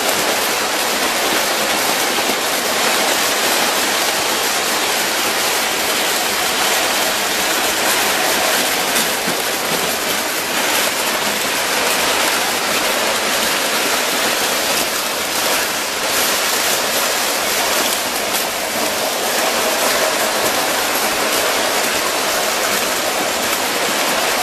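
O scale Lionel and Williams model trains running on tinplate tubular track: a steady, even rushing noise of metal wheels on the tin rails and the locomotives' electric motors.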